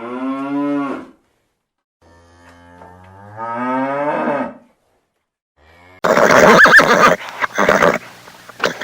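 A cow mooing: one call ends about a second in, and a second long call rises in pitch. About six seconds in, a horse neighs, loud, with a wavering high whinny.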